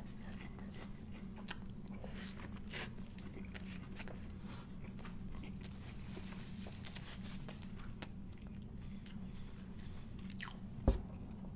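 A person chewing a bite of sandwich with faint, scattered mouth clicks and crunches over a steady low hum. A short low thump comes near the end.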